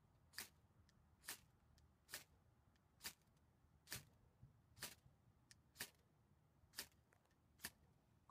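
Blackhawk Bushcraft Fuego ferrocerium firesteel rod being struck in a steady rhythm: nine short, sharp scrapes, about one a second, each one throwing sparks.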